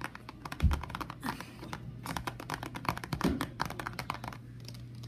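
Fingertips and nails tapping rapidly on the plastic lid of a slime tub: a quick, irregular clatter of small clicks, with a few duller knocks.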